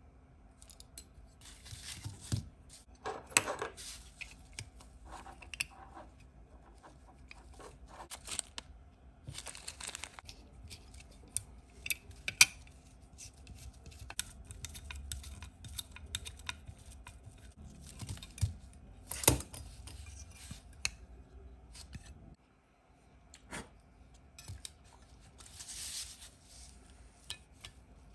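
Irregular small clicks, taps and rustles of hands working on the small parts of an RC model kit, with a few longer scraping or rustling stretches between the sharp clicks. A faint background hum cuts off about three-quarters of the way in.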